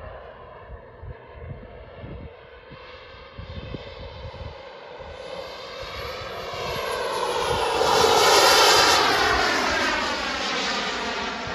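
Turbine of a radio-controlled Tomahawk L-39 Albatros model jet making a pass. Its whine grows louder, peaks about eight seconds in with the pitch dropping as it goes by, then fades away.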